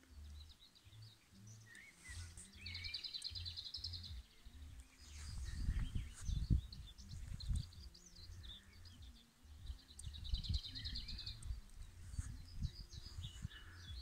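Songbirds singing, with a rapid trill heard twice and scattered chirps and whistles, over gusty low buffeting on the microphone.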